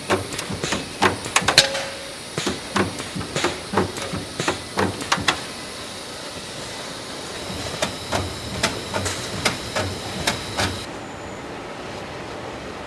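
Car-body assembly line noise: irregular sharp metallic clanks and knocks, several a second at times, from aluminium body panels being handled at pneumatic assembly machinery, over a steady factory hum. Near the end the clanks stop and only the steady hum remains.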